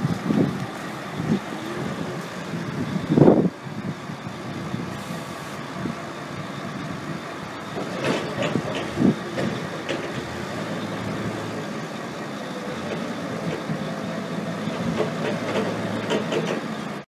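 Heavy diesel vehicle engine running steadily, with a loud knock about three seconds in and a few more knocks and clunks around eight to nine seconds.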